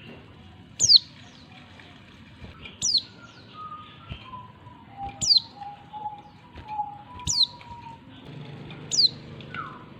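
Female oriental white-eye calling: short, high, sharply falling notes repeated about every two seconds, five in all. Fainter, lower whistled notes sound between them in the middle.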